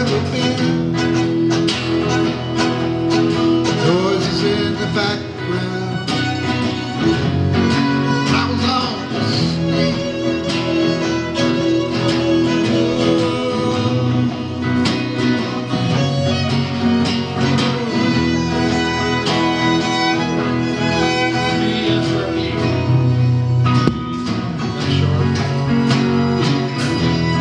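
Live band playing an instrumental break with no singing: guitar and a sustained lead melody over a steady beat.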